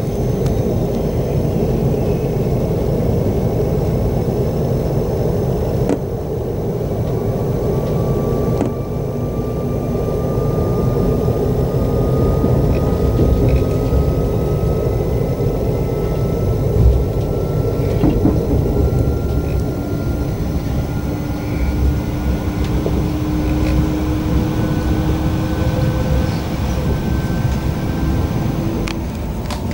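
Steady rumble of a moving electric passenger train heard from on board. A thin whine climbs slowly in pitch through most of it, typical of traction motors as the train picks up speed.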